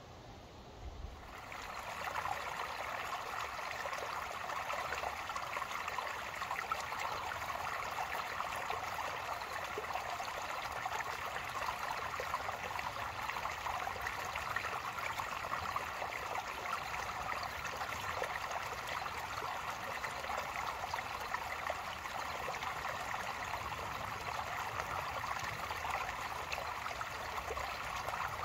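Shallow creek water trickling and burbling steadily over flat stones, coming in about a second and a half in.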